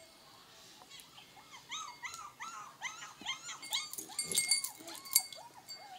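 Small puppies whimpering: a quick run of short whines, each rising and falling in pitch, about three a second, starting about a second in. A few sharp clicks come in between.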